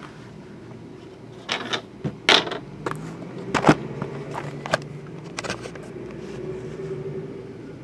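Sealed cardboard boxes of hockey cards being shifted off a stack and picked up: a scatter of sharp taps and knocks, about eight in all, the loudest about halfway through, over a low steady hum.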